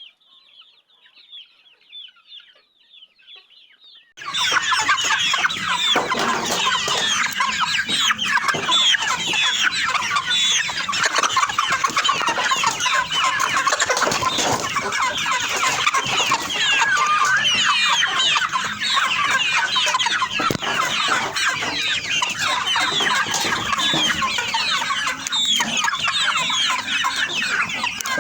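A dense chorus of many young chicks peeping together, their overlapping high calls faint at first, then suddenly loud about four seconds in and carrying on without a break.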